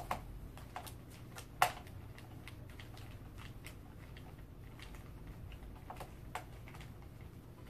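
Small scattered clicks and ticks of a screwdriver working a screw into the rocker's metal-tube and plastic frame, with one sharper click about a second and a half in.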